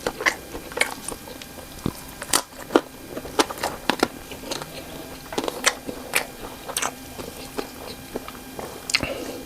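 Close-miked eating sounds of cocktail sausages with green chili being bitten and chewed: sharp, irregular mouth clicks and snaps, several a second.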